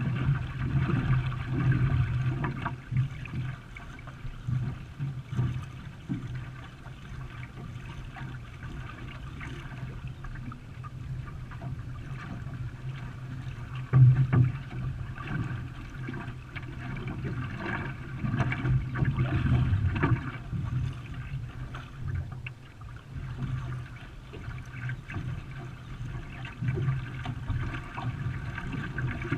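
Racing canoe paddled through the water, with splashing and swirling water around the paddles and hull in uneven surges. A single sharp knock about halfway through is louder than the rest.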